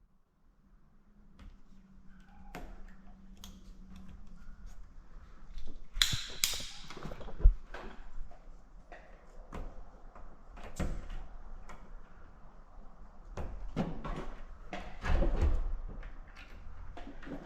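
Irregular knocks, clicks and handling noises of hand work with tools and parts, with louder bursts of noise about six seconds in and again about fifteen seconds in.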